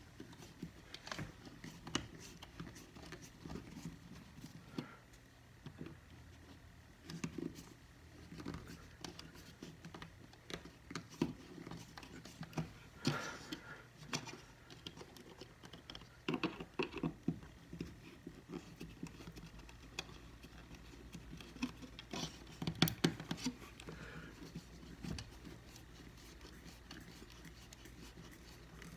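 Faint, scattered clicks, taps and scratching from hands bending a thermostat wire into a terminal and a small screwdriver tightening the terminal screw on the plastic thermostat base.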